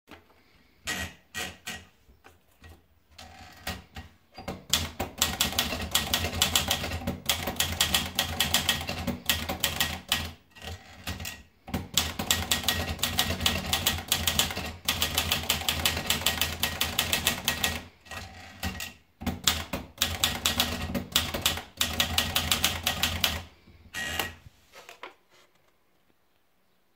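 Olivetti Dora manual portable typewriter being typed on: fast runs of key strikes with a few short pauses, starting with a few scattered keystrokes and stopping near the end.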